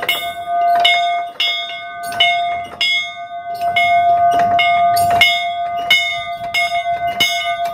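A metal bell struck over and over, about every two-thirds of a second, its ringing carrying on from one strike into the next. It is rung as a homemade doorbell, a signal for visitors to announce that they have arrived.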